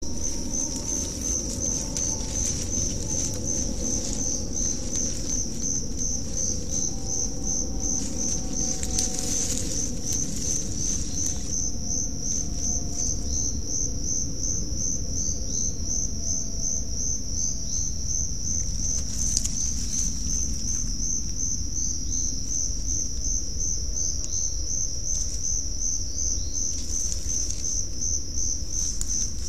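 A cricket calling: a steady, high-pitched chirping with an even pulse, running unbroken over a low background hiss.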